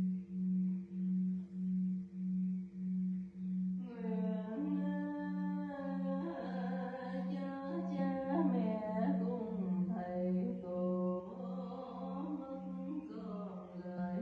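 A steady low humming tone that swells and fades about twice a second, with fainter higher overtones. About four seconds in, a voice joins it, chanting slowly in shifting notes over the drone.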